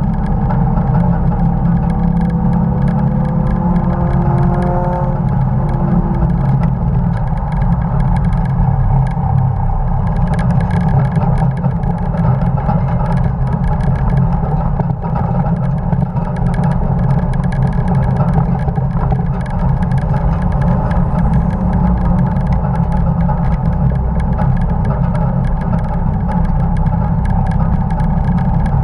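1950 Dodge truck race car's engine running hard at speed, loud and steady, with wind and road noise. A faint tone rises in pitch over the first five seconds or so as it accelerates, then the sound holds steady.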